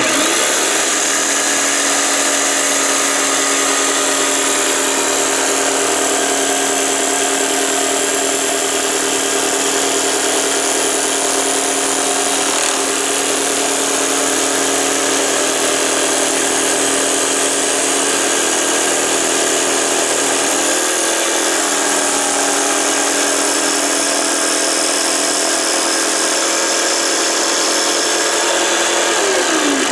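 Rockwell BladeRunner tabletop saw running steadily as its reciprocating jigsaw-type blade, fitted for tile, cuts a curve through ceramic tile. The motor winds up at the start and spins down near the end.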